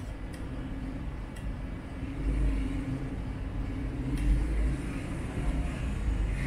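Low steady rumble with a hum, heavier from about two seconds in, and a few faint clicks.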